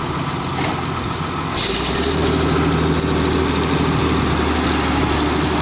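Heavy engine running steadily. About a second and a half in, its note changes to a deeper, slightly louder hum, with a short hiss at the change.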